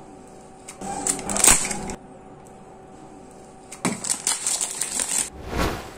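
A utility knife scrapes and slits the plastic shrink wrap on a small cardboard box, with sharp clicks, about a second in. From about four seconds in, the plastic wrap crinkles and crackles as it is pulled off by hand, loudest near the end.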